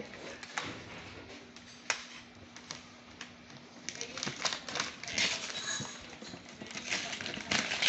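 Gift-wrapping paper being torn and crinkled off a box by hand: scattered crackles and rips, busier and louder in the second half.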